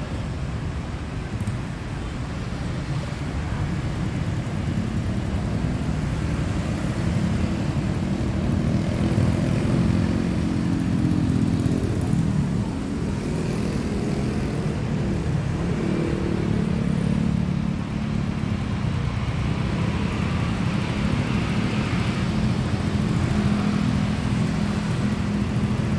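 Steady city road traffic: cars and motorcycles passing on a multi-lane road, a continuous rumble of engines and tyres, with engine hum swelling and easing as vehicles go by.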